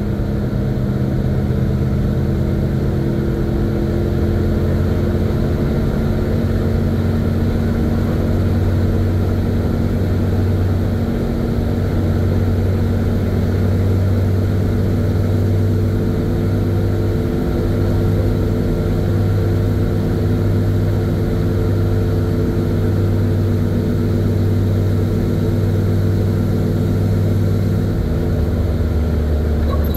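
1970 Chevy C50 dump truck's engine running steadily at road speed, heard from inside the cab along with road noise. Its pitch shifts slightly a few times.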